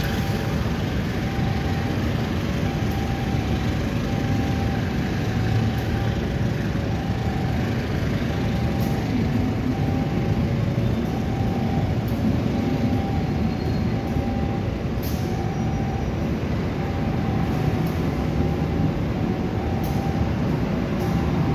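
Long-distance passenger train coaches rolling past a station platform: a steady, loud rumble of wheels on rails, with a faint tone repeating about once a second.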